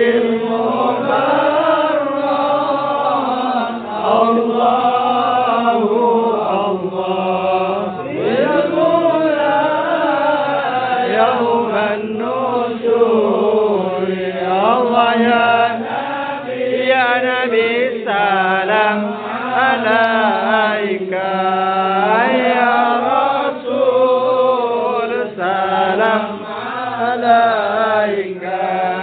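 A group of men chanting sholawat together, a slow, melodic Islamic devotional chant in Arabic, with one voice carried on a microphone.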